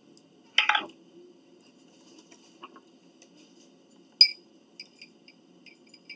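A short, loud slurp about half a second in. About four seconds in comes a sharp clink of a metal fork against a glass jar of banana peppers, then several lighter taps and clinks as the fork picks pieces out.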